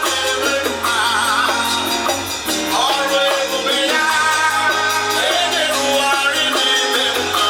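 Music with singing: an upbeat song with guitar and drums and a steady beat.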